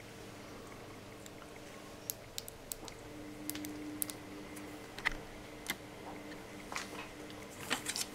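Small scattered plastic clicks and handling noises as a car cruise-control switch module's circuit board and rubber button pads are pressed back into its plastic housing by hand. A faint steady hum runs underneath.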